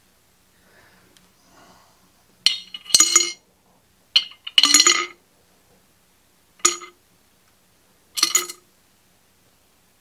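Small metal carburetor parts and screws dropped into a glass jar, clinking against the glass in four short bursts spread over several seconds.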